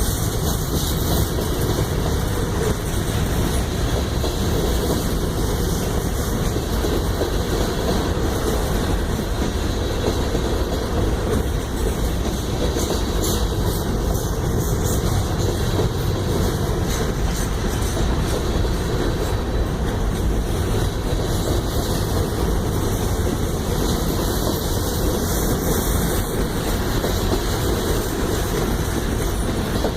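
Train rolling past, its cars making a steady rumble on the rails with some wheel clatter.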